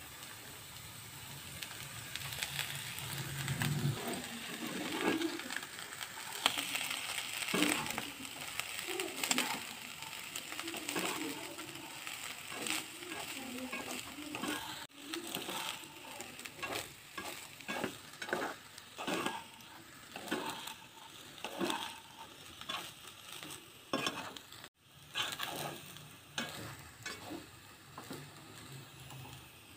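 Fried rice with vegetables sizzling in a hot pan while a spatula stirs and tosses it. In the second half the stirring comes as quick repeated strokes, about one to two a second.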